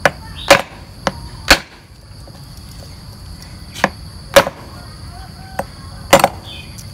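Heavy long-bladed chopper hacking at a pork leg bone on a round wooden chopping block: about eight sharp chops, irregularly spaced, with a pause of about two seconds after the first four.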